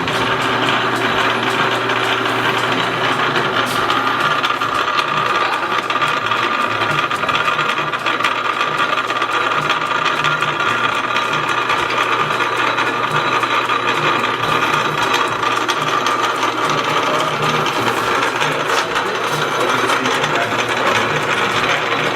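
Two metal lathes running together, one lathe's spindle driving an old cone-head lathe by a belt: steady mechanical running of gears, pulleys and belt, with a steady whine.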